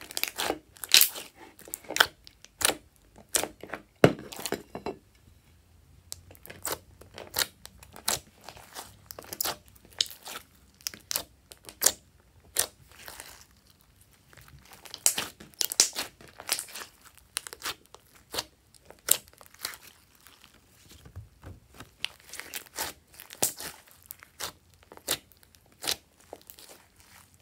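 Glossy slime being squeezed, kneaded and stretched by hand, giving a rapid, irregular run of sticky clicks and pops with short quieter gaps.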